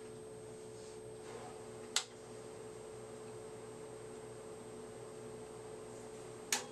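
Steady hum with a held tone and a faint high whine from running vintage computer equipment, broken by two short sharp clicks, one about two seconds in and one near the end.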